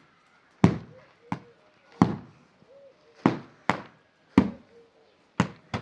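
Repeated sharp impacts, about eight strikes at irregular intervals, each dying away quickly.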